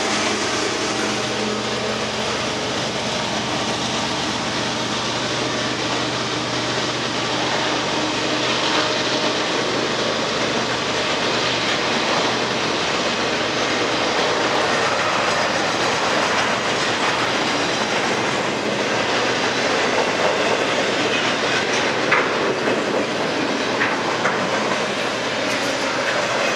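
Intermodal freight train's well cars loaded with trailers and containers rolling past at speed, a steady rumble of steel wheels on the rails. The hum of the trailing diesel locomotive fades out over the first several seconds, and a few sharper clicks come near the end.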